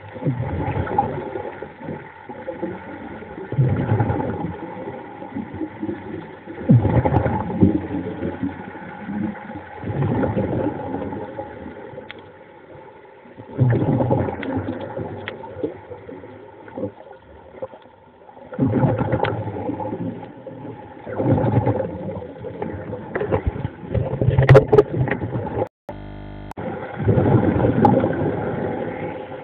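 Muffled underwater sound: a steady engine-like hum with rushes of water noise that swell and fade about every three seconds.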